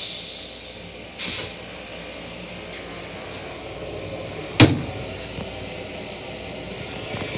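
Steady low rumble inside a Long Island Rail Road M9 railcar's restroom, with a short hiss about a second in and one loud clunk a little past halfway.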